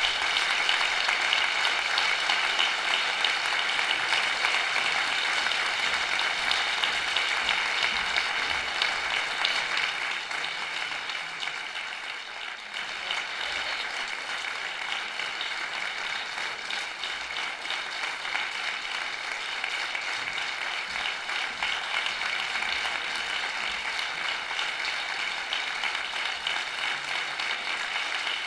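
Sustained applause from a room full of people, a dense crowd of clapping hands. It eases off a little about twelve seconds in, then picks up again and carries on.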